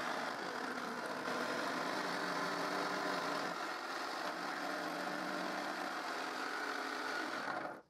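Electric jigsaw mounted under a homemade jigsaw table running steadily while ripping plywood, its motor giving an even whine, then stopping suddenly near the end.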